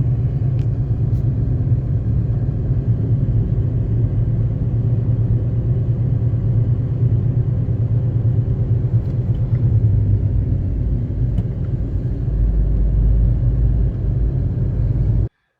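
Car driving on the road: a steady, loud low rumble of engine and road noise that cuts off abruptly near the end.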